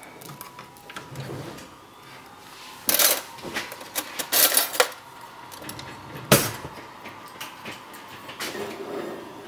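A few sharp knocks and clatters over a low background. There is a cluster about three seconds in, another around four and a half seconds in, and a single loudest knock just past six seconds.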